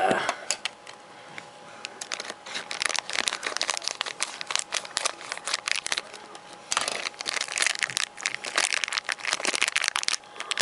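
Clear plastic blind-bag wrapper crinkling and rustling in the hands as it is handled and pulled open around a small toy figure, in uneven spurts of crackling.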